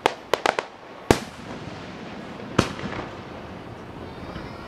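Aerial fireworks shells bursting: a quick run of four sharp bangs in the first half second or so, the loudest bang about a second in, and one more at about two and a half seconds, each with a short echoing tail.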